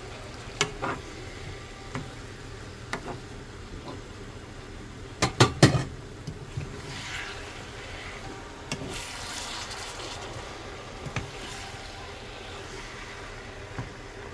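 Wooden spatula stirring fish cakes and onions in sauce in a nonstick wok, with scattered knocks of the spatula on the pan and three sharp knocks in quick succession about five seconds in. The sauce sizzles softly underneath.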